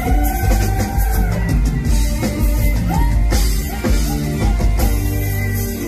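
Live Thai mor lam band music with a steady drum kit and bass beat. A female singer holds one long note in the first second or so, followed by shorter sliding melodic phrases.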